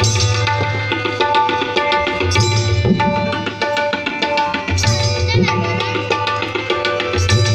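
Instrumental music interlude: a rhythmic hand-drum beat with deep repeating bass strokes under a sustained melody instrument, no singing.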